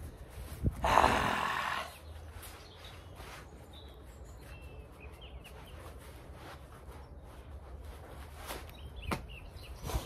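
A sheep bleats once, loudly, about a second in. Faint bird chirps follow, and a few sharp clicks come near the end.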